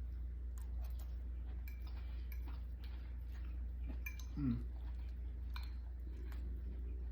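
Faint, scattered clinks of a fork against a bowl and chewing while a salad is eaten, over a steady low hum. A brief murmur of the voice comes about four and a half seconds in.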